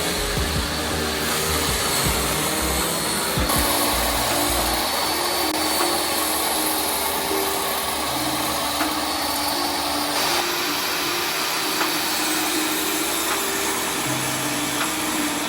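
A woodworking power tool running steadily, its noise shifting about 3.5 and 10 seconds in, with background music.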